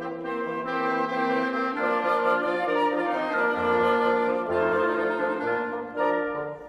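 Woodwind quintet of flute, oboe, clarinet, French horn and bassoon playing a classical piece in sustained, shifting chords. A low bassoon line comes in about three and a half seconds in.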